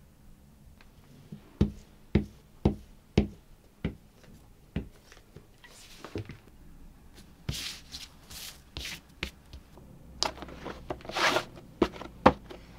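A run of about six sharp taps roughly half a second apart, then paper rustling and rubbing as paper labels and cardboard knife boxes are handled on a desk, ending with two sharp clicks.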